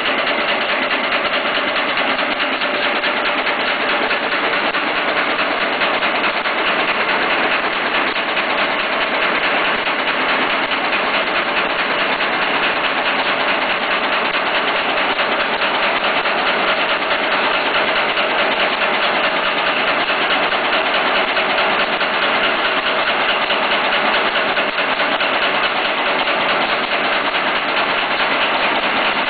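Nail making machine running steadily: a continuous, fast mechanical clatter at an even level.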